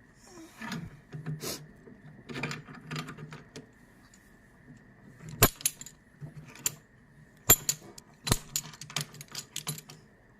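Irregular metallic clicks and clinks as a puller is tightened step by step on a Mahindra XUV500 rear brake caliper, winding the piston back into its bore. The clicks are sparse at first and come thicker and sharper from about halfway.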